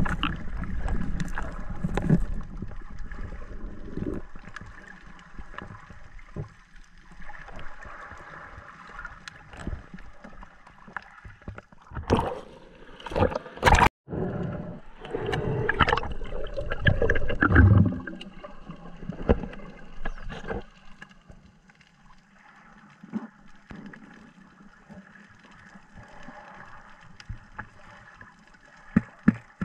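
Muffled underwater sound from a camera in its waterproof housing: uneven rushing and gurgling of water as the diver moves, with many scattered clicks. It cuts out briefly about halfway through.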